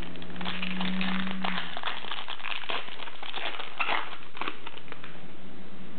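Foil wrapper of a trading-card pack crinkling and tearing as it is opened by hand, a dense run of irregular crackles throughout.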